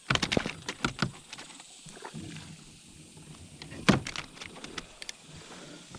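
Knocks and clicks from a caught flounder and fishing gear being handled aboard a kayak: a quick run in the first second, then a few scattered knocks, the loudest about four seconds in.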